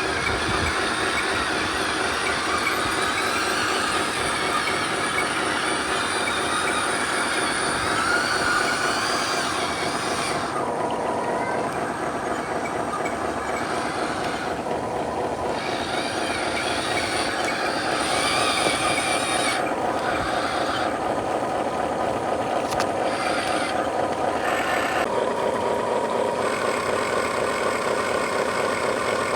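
Remote-control truck running: a steady mechanical drone with a fast rhythmic pulse, and a hissy upper layer that cuts out and returns several times.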